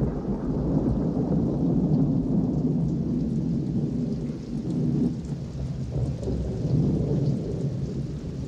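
Thunderstorm: heavy rain with a continuous low rumble of thunder that swells and eases.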